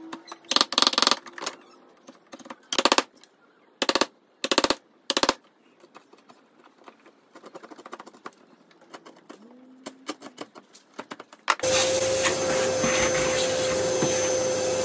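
Steel chisel struck with a mallet, chopping a mortise in pine: a quick run of sharp blows about a second in, then single strikes, then light taps and scraping as the waste is levered out. About twelve seconds in, a vacuum cleaner starts and runs steadily with a hum, sucking up the wood chips.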